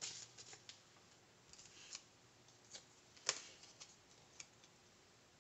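Faint, scattered light clicks and paper ticks of a small planner sticker being handled, peeled and pressed onto a paper planner page, the sharpest click about three seconds in.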